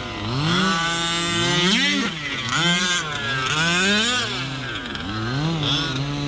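Gas two-stroke engines of large-scale RC trucks racing, the pitch sweeping up on the throttle and dropping off again every second or so, with more than one engine overlapping at times.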